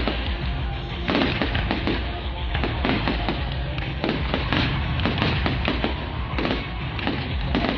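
Fireworks bursting one after another, many sharp bangs and crackles several times a second, over music played loud through loudspeakers for the display.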